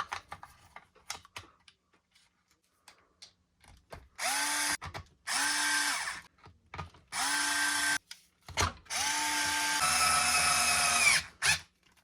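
Cordless power screwdriver driving in the gear cover screws: four short runs that each spin up to a steady whine, the last one longest, with small clicks of handling between them.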